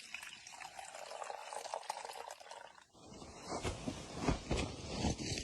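Liquid pouring into a container, a steady splashing stream for about three seconds, which stops suddenly. It is followed by louder rustling and knocks with low thumps.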